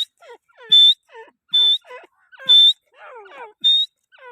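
Grey francolin calling: loud, shrill whistled notes, each rising slightly, repeated about once a second, with softer falling notes between them.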